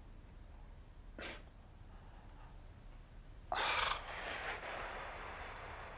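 A man breathing audibly between words: a short breath about a second in, then a louder, longer breath, like a deep sigh, about three and a half seconds in.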